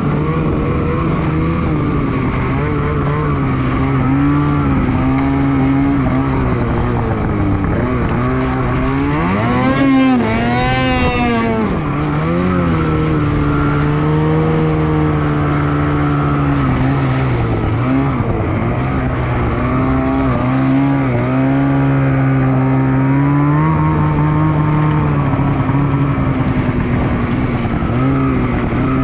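Polaris Switchback Assault 850 snowmobile's two-stroke engine running at speed, holding a steady note most of the time. About ten seconds in it revs up sharply and drops back, and it starts to rev up again right at the end.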